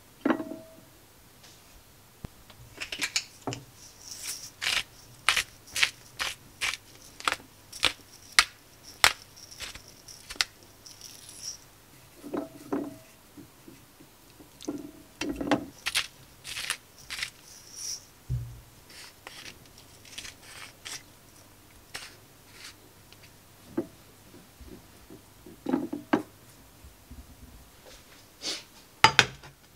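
Food preparation on ceramic plates: runs of crisp ticks, about two a second, from a pepper mill grinding over raw chicken breast slices, with a few knocks as plates and chicken are set down on the counter.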